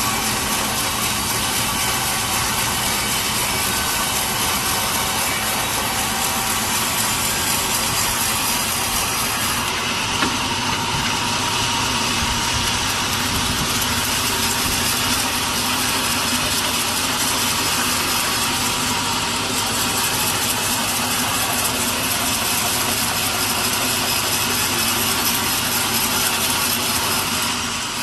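Sawmill saw running steadily as it cuts through a log, a continuous dense machine noise with a brief dip in the high hiss about ten seconds in.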